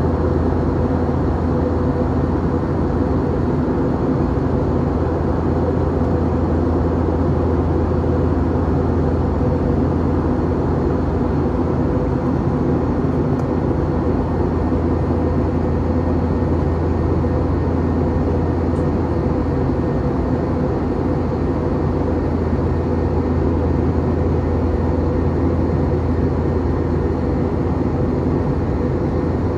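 Steady cabin noise inside an Airbus A321 airliner in flight: engine and airflow drone with a strong low hum and a few steady tones, unchanging throughout.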